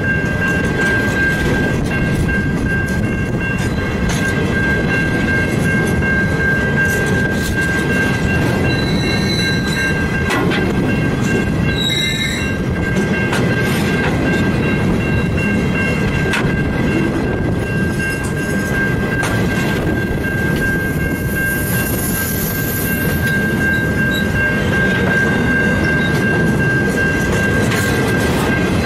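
Grain hopper wagons of a long freight train rolling past close by: a steady rumble of wheels on rail with a constant high-pitched whine over it, and two short high squeals from the wheels about nine and twelve seconds in.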